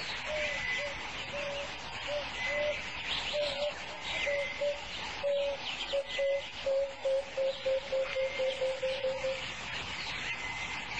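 Birds calling in the bush: one bird repeats a short, low hooting note over and over, the notes coming faster and closer together until they stop near the end, while other birds or insects keep up a busy high chirping.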